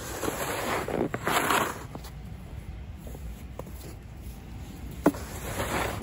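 Snow shovel scraping and scooping packed snow on a driveway: two long scrapes in the first two seconds, a sharp knock of the blade about five seconds in, then another scrape.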